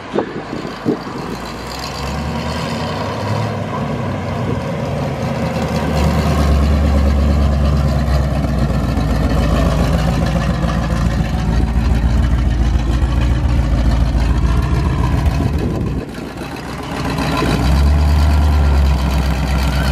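Engine of an early-1970s Pontiac Firebird drag car rumbling at low revs as the car rolls slowly along. The rumble swells from about six seconds in, dips briefly near the end and then comes back loud.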